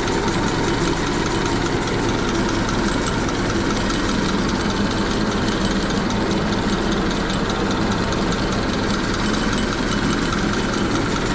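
Honda Civic's D16 four-cylinder engine idling steadily, with a fast, even light ticking over the drone. The owner suspects the engine of rod knock.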